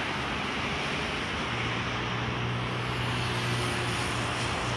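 A bus's diesel engine running steadily, a low hum that grows stronger about a second and a half in, over a steady rush of background noise.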